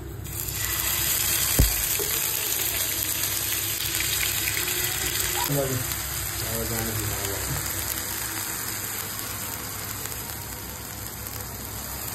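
Ginger-garlic paste sizzling in hot oil in a frying pan: the sizzle starts as the paste hits the oil and keeps up steadily. A single sharp knock about a second and a half in.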